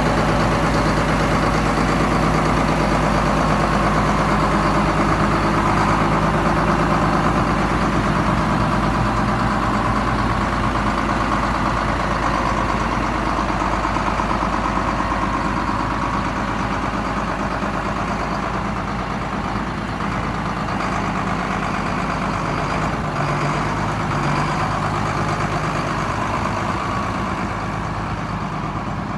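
Case IH 7130 Magnum tractor's diesel engine running steadily soon after a cold start, as the tractor moves off across the ground; the sound eases slightly toward the end as it pulls away.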